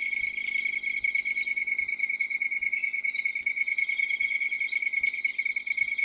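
Night chorus of insects such as crickets: a steady, high, fast trilling held at one pitch, with faint soft low knocks repeating a little more than once a second.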